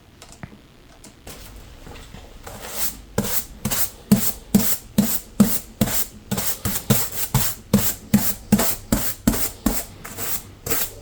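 Wood of an old guitar body being rubbed back and forth by hand, like sanding or rasping, at about two to three strokes a second. The strokes start faintly and become louder about three seconds in, after a few light clicks.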